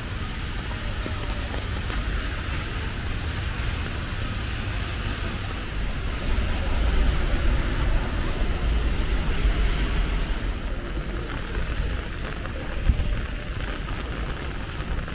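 Rainy-day street ambience: an even hiss of rain and tyres on wet roads over a low traffic rumble, swelling for a few seconds in the middle. A single short thump near the end.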